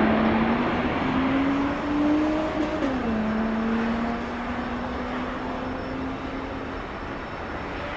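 Jet airliner engine noise, loud at first and slowly fading. A steady tone in it rises slightly and then drops sharply in pitch about three seconds in.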